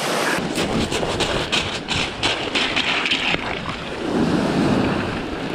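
Wind buffeting the microphone of a body-worn camera, with the gusty rumble setting in about half a second in, over surf washing onto a pebble shore.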